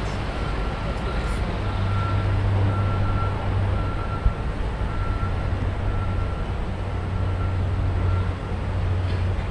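Steady outdoor rumble and hiss, with a faint high-pitched beep repeating about once a second until near the end. A single short knock comes about halfway through.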